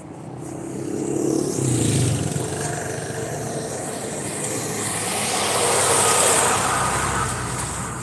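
Road vehicles passing close by: one goes by about two seconds in and a second, slightly louder, about six seconds in, each rising and fading away.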